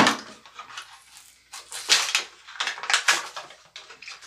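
Short rustling and clacking handling noises from plastic parts and packaging, several in a row with short pauses between.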